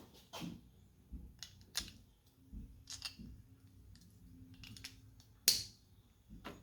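Scattered small clicks and taps from a key fob's plastic case and CR2032 coin battery being handled as the battery is seated, with one sharper click near the end.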